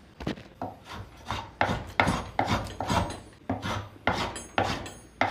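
Hand plane taking quick, short scraping strokes along the chamfered edge of a wooden table leg, about two or three strokes a second, shaving the chamfer down toward the marked line.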